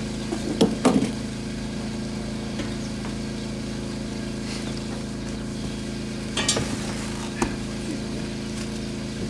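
A steady, even machine hum, with a few short clicks and knocks over it.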